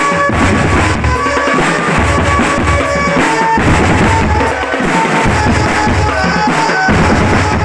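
Drum band music: bass drums and snare drums beating a steady pattern under a melody of short high notes.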